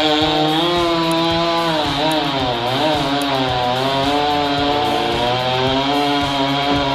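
Two-stroke chainsaw running at high revs while cutting wood, its engine pitch wavering up and down with the load.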